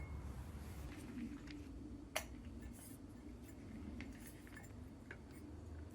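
Faint handling clinks of a glass beer bottle and a forged wrought-iron bottle opener, with one sharp clink about two seconds in and a few lighter ticks later.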